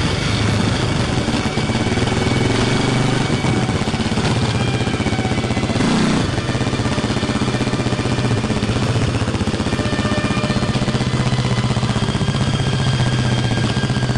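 Enduro motorcycle engine running at low, fairly steady revs, with a brief louder noise about six seconds in.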